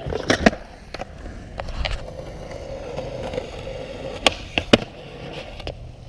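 Skateboard wheels rolling on concrete with a few clacks of the board, then a steady scrape as the board grinds a flat metal rail. Near the end come three sharp clacks as the board comes off and hits the concrete in a bail.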